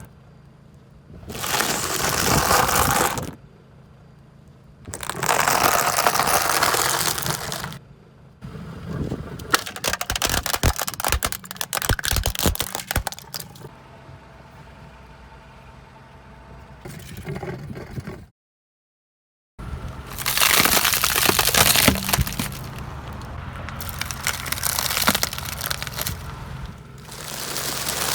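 Plastic soda bottles cracking and crushing under a car's tyres, with a run of sharp cracks and several long hissing bursts of a few seconds each.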